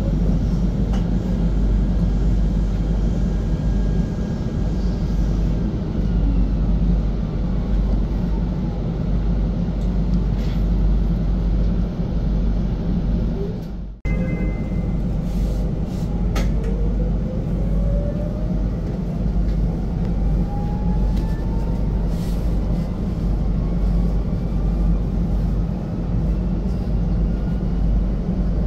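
KTM Class 93/2 ETS electric multiple-unit train running with a steady low rumble of wheels and running gear. In the second half a faint whine rises steadily in pitch as the traction motors pull the train up to speed. The sound cuts out for a moment about halfway through.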